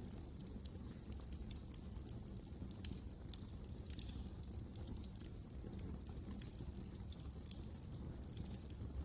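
Fire crackling in a fireplace: frequent small, sharp snaps at irregular intervals over a low, steady rumble.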